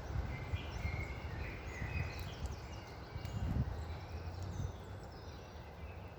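Several songbirds chirping and trilling in short, overlapping phrases, busiest in the first half, over a low, gusty wind rumble that peaks about three and a half seconds in.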